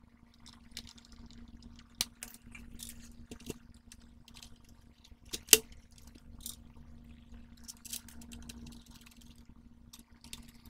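Scattered clicks and knocks of hard plastic parts being handled and screwed together as a PlayStation 4 power supply is closed up with a small screwdriver and set into the console's chassis. There is a sharp knock about 2 seconds in and a louder one about halfway through, over a faint steady hum.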